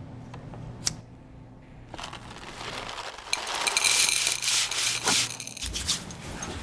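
Sandpaper rubbed by hand across a wooden board: a scratchy sanding noise that starts about two seconds in and lasts about three seconds. A single click comes about a second in, over a low steady hum.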